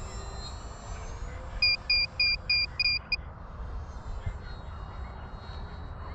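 The brushless electric motor and three-blade propeller of a distant RC airplane whine faintly and fade out in the first second or so. About a second and a half in come five short, evenly spaced electronic beeps, the loudest sound. Wind rumbles on the microphone throughout.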